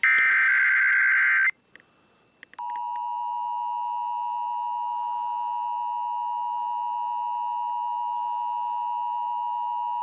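Emergency Alert System Required Weekly Test on KIKC-FM 101.3 received over FM radio. The last warbling burst of the SAME digital header tones ends about a second and a half in. After a short pause the steady two-tone EAS attention signal sounds for about eight seconds.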